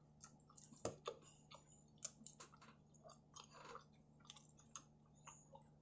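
Faint chewing of a piece of pizza, with scattered soft mouth clicks and one sharper click about a second in.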